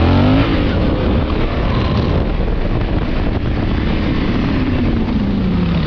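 Motorcycle engine accelerating, its pitch rising at the start, then running on and sliding slowly down in pitch over the last couple of seconds as the throttle eases. Heavy wind rushing over the microphone at speed.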